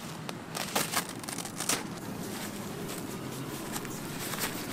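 Dyneema (DCF) tent fabric crinkling and rustling as it is handled. The crinkles come in a few sharp bursts in the first two seconds and again near the end.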